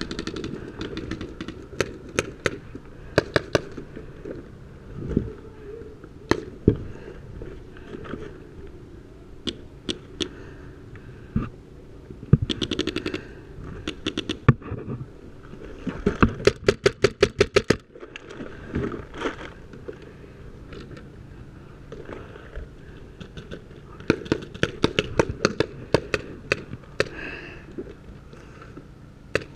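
Paintball markers firing: scattered single shots and quick strings, the longest a run of about a dozen shots in two seconds just past the middle, with another burst of fire near the end.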